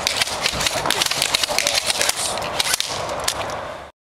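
Airsoft guns firing: an irregular string of sharp snaps and clicks over background noise, which cuts off abruptly about four seconds in.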